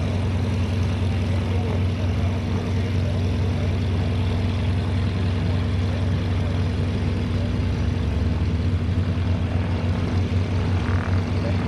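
North American SNJ Texan's nine-cylinder radial engine and propeller droning steadily through an aerobatic manoeuvre, a low, even note that wavers slightly near the end.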